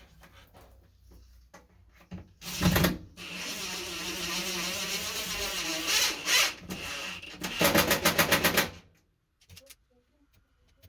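Power drill driving screws into a wall. A short burst comes about two and a half seconds in, then a run of about four seconds with a wavering motor pitch, then about a second of rapid, evenly spaced clattering.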